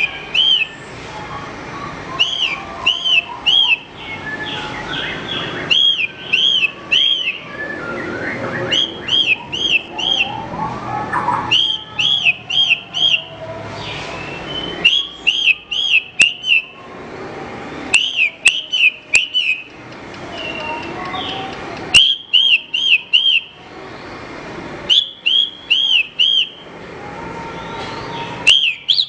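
Javan bush lark (branjangan) singing: short phrases of three or four quick, arched whistled notes, repeated about every three seconds, over softer, lower warbling and background noise.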